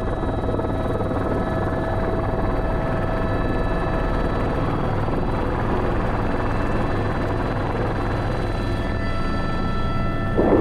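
Airbus H125 single-turbine helicopter in flight: a steady rotor and turbine drone with a constant whine of fixed tones over it. A short, louder rush of noise comes near the end.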